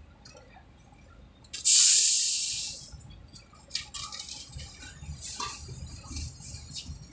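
A sudden loud hiss of escaping air about a second and a half in, fading out over about a second, followed by scattered clinks and knocks over a low machinery rumble.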